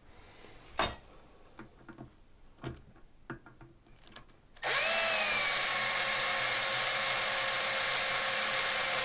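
Cordless drill/driver running steadily to drive a toilet-seat bolt into its plastic nut. It starts suddenly about halfway through with a steady whine, after a few light clicks of handling.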